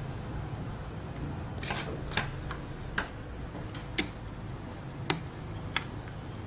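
Thin steel transformer core laminations being handled and fitted together: about seven sharp metallic clicks at uneven intervals, over a low steady hum.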